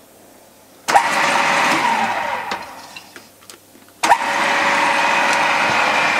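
Cylinder boring machine's motor started with a click about a second in, running briefly and then winding down. A second click just after four seconds starts it again, and it runs on steadily with a high whine as the boring bar is put into gear.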